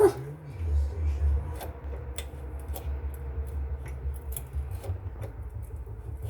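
Scattered light clicks and scrapes of small engine parts and tools being handled, over a low steady rumble.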